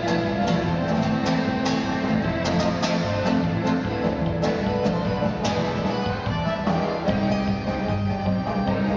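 Live acoustic trio of nylon-string classical guitar, button accordion and bowed upright bass playing a tune, with sharp plucked guitar notes over held accordion and bass tones.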